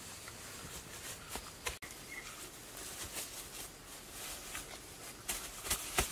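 Hands rustling and patting strips of grass turf down onto loose soil, a scatter of soft crackles and taps, the sharpest near the end.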